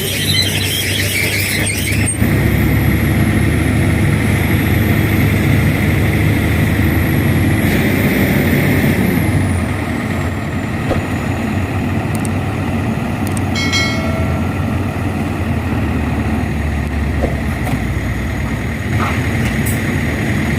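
Radio-controlled model excavator and truck running: a steady mechanical drone with a very high electric-motor whine that rises and falls in the first half. There is a brief squeal about two-thirds of the way through.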